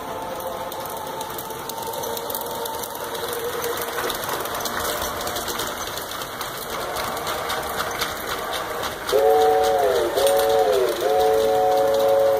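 LGB G-scale model train running along the track with a steady clicking clatter. From about nine seconds in, the locomotive's sound unit plays a three-note chime whistle: two short blasts, then a long one that falls away in pitch at the end.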